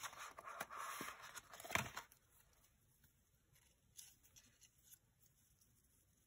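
Paper pieces and a clear plastic case rustling and clicking as they are handled for about two seconds, then near silence with faint handling sounds.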